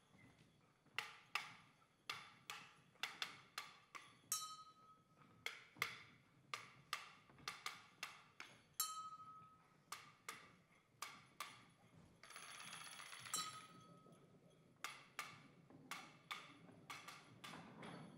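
Wooden sticks knocking against each other and on the stage floor in an irregular run of sharp clicks, with a brief ringing note three times and a short rustle near two-thirds of the way through.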